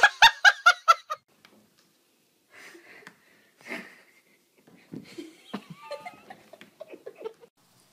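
A person's loud, pulsing belly laugh lasting about a second, then after a pause quieter scattered taps and scrapes: a fawn's hooves slipping on a hardwood floor.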